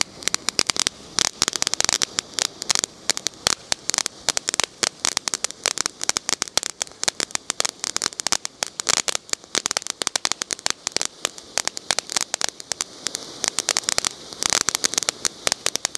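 Ground fountain firework spraying sparks: a dense, rapid crackling of many small pops over a hiss, busiest about a second in and again near the end.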